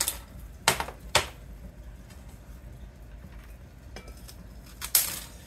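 Tin snips cutting thin circuit-board strips into short pieces. Each cut is a sharp snap: three in the first second and a half, then two more near the end, with the cut pieces dropping into a plastic beaker.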